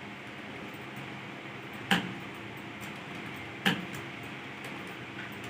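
Computer keyboards being typed on, light key clicks under steady room noise, with two louder sharp clicks about two seconds and nearly four seconds in.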